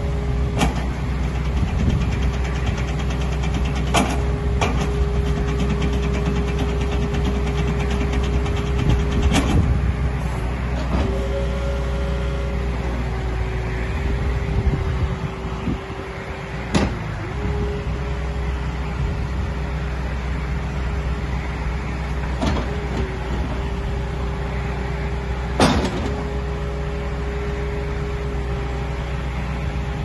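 John Deere 314G skid steer's diesel engine running steadily with a constant whine over it as the machine drives and raises its loader arms. The rumble dips briefly about halfway through, and there are several sharp clanks, the loudest about 26 seconds in.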